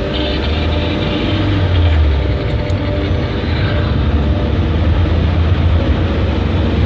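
Car engine and road noise heard from inside the cabin while driving: a steady low rumble that grows slowly louder.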